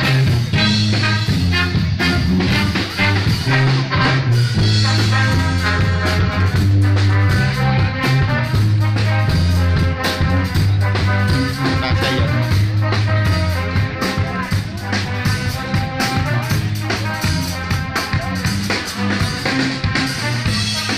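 Live brass band playing, a sousaphone carrying the bass line under the horns; the music gets a little quieter about two thirds of the way through.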